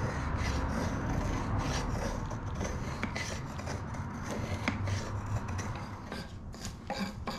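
Carbon-steel bushcraft knife blade shaving curls down a wooden 2x4: repeated scraping strokes of the edge along the wood, carving a feather stick.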